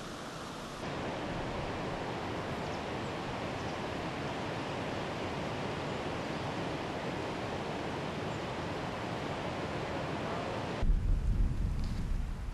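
Floodwater rushing over a submerged road, a steady hiss of water. About eleven seconds in it gives way to gusty wind buffeting the microphone.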